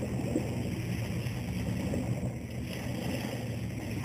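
An engine running steadily with a low, even hum, under wind and outdoor noise.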